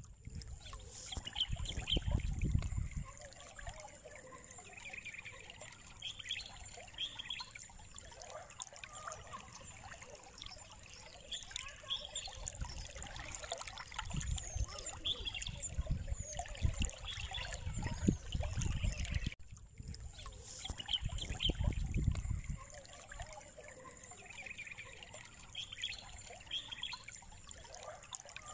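Faint trickling, water-like noise with scattered small crackles, broken by a few low rumbles lasting a second or two, and a faint steady high whine underneath.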